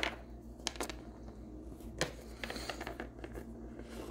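Small plastic Littlest Pet Shop cat figurines being handled and set down on a countertop: a few light plastic clicks and taps, with a brief cluster of scuffing taps about two seconds in.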